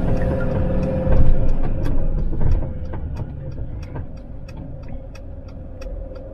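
Car cabin as the vehicle slows to a stop: engine and tyre rumble falls away about two and a half seconds in, then a turn signal ticks evenly about three times a second.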